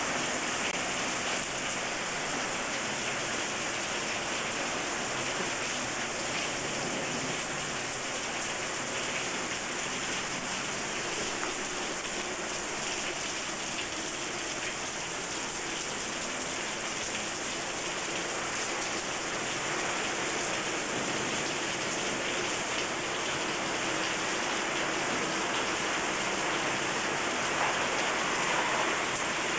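Heavy hailstorm: hail and rain beating down in a steady, dense hiss speckled with many small hits.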